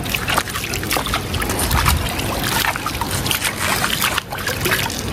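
River water rushing and splashing over rocks close by: a steady rush with dense, irregular splashes.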